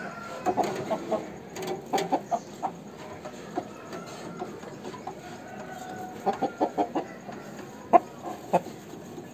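Aseel rooster clucking in short runs of three to five quick, low clucks, with two louder single clucks near the end.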